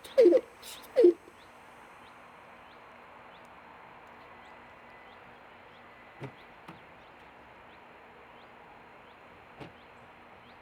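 Low cooing calls, two short ones in the first second. After them only a faint steady hiss of outdoor background with faint high chirps and a couple of soft knocks.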